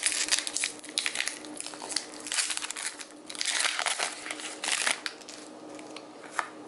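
Foil wrapper of a Pokémon trading card booster pack being pulled open and crinkled by hand: a run of irregular crackles and rustles, louder in a few short spells.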